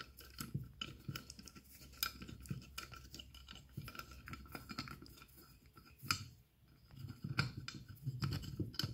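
Long Allen key turning the bolts that hold a top-feed fuel rail to an intake manifold: irregular light metallic clicks and scrapes as the key is worked in the bolt heads.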